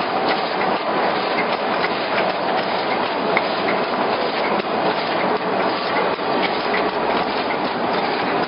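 Automatic sugar cone machine running: a steady mechanical clatter with many small clicks and knocks from its baking-plate chain and cone-rolling turret.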